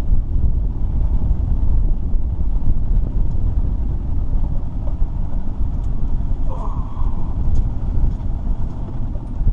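Steady low rumble of a small fishing boat under way, its motor running.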